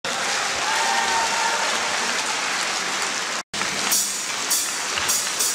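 An audience applauding: a steady, even clatter of clapping that cuts out for a moment about three and a half seconds in, then goes on.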